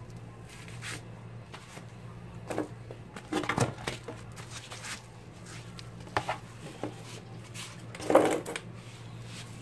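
Scattered knocks and clatter of hard objects being handled and set down, the loudest cluster near the end, over a steady low hum.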